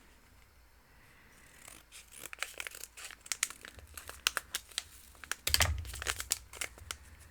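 A small plastic packet of micro beads being handled, crinkling and rustling in irregular bursts after a quiet start, with a louder knock about five and a half seconds in.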